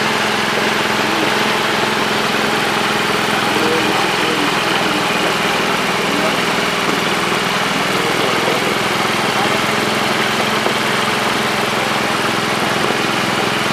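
An engine running steadily with a low hum, under the hiss of water spraying and splashing from pipes.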